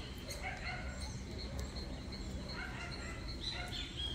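Birds chirping and calling in the background, short scattered chirps over a low rumble.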